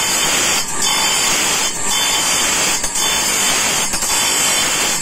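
Electric motor-driven abrasive grinding disc grinding the teeth of a long steel saw blade, sharpening them: a harsh, steady grinding hiss with a short break about once a second.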